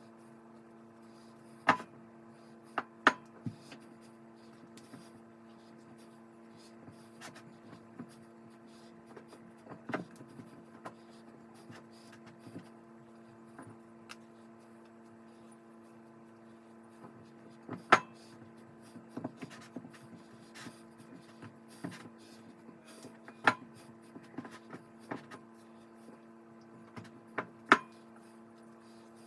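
Hand-kneading dough in a mixing bowl: scattered sharp knocks and taps of the bowl and hands, a handful of louder ones spread irregularly, over a steady low electrical hum.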